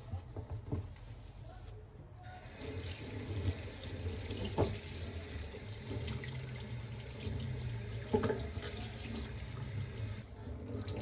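Water running steadily, starting about two seconds in and stopping near the end, with a couple of light knocks in between.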